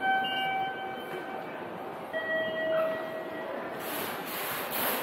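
A train horn sounds two notes, a higher one and then a lower one about two seconds later, each held for about a second and a half. A rushing noise rises near the end.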